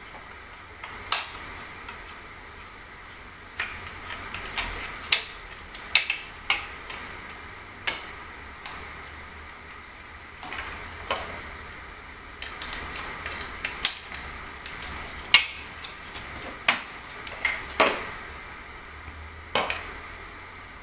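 Irregular metallic clicks and clinks of tools and small parts as the stock is taken off a Sharp Innova air rifle, with a few louder knocks in the middle and later part.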